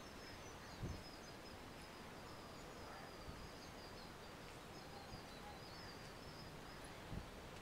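Faint steady background hiss with small birds chirping high and repeatedly, and two soft low thumps, about a second in and near the end.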